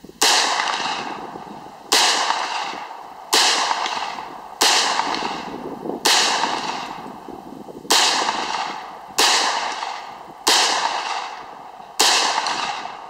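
A gun fired nine times in slow, aimed single shots, about one every one and a half seconds, each shot trailing off in a long echo.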